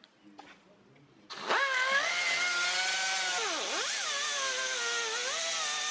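Pneumatic cutoff tool with an abrasive disc starts about a second and a half in and runs with a high whine while cutting into the metal casing of a Tesla high-voltage junction box. Its pitch sags as the disc bites, dips sharply about halfway through, then picks back up.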